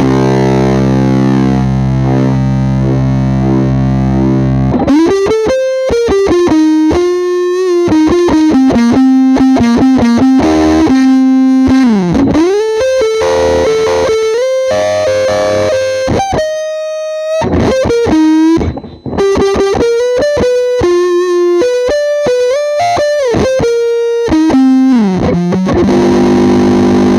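Electric guitar through a Dunlop Fuzz Face Mini fuzz pedal, recorded straight into an audio interface. A held fuzzy chord rings for about five seconds, then a single-note riff with string bends follows, and it ends on another held chord.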